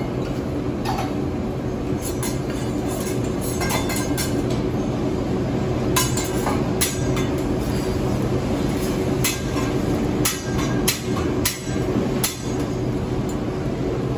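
Hibachi chef's metal spatula clacking and clinking irregularly against the steel teppanyaki griddle, more often in the second half, over a steady low hum.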